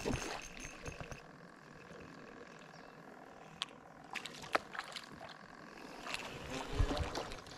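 A small splash on the lake surface at the start, then scattered sharp clicks and knocks from fishing tackle and the boat, with a low thud near the end.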